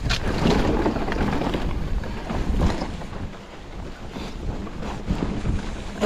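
Mountain bike ridden along a dirt trail: wind buffeting the microphone over a steady rumble of tyres on dirt, with frequent short clicks and knocks as the bike rattles over bumps.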